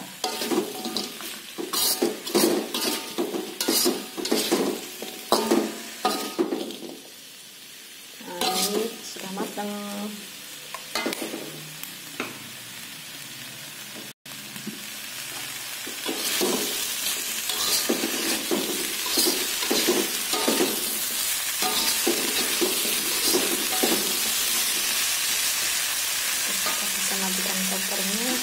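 A metal spatula scrapes and stirs cubed tempe in sweet soy sauce in a hot wok, with many quick scraping strokes. From about halfway through, a steady sizzle grows louder under the stirring.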